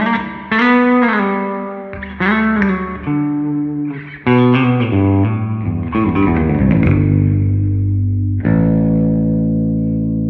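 Squier Bass VI, a six-string bass tuned an octave below guitar, picked on its treble (bridge) pickup alone: a phrase of notes with a couple of bends up and back down, ending on a long chord left to ring.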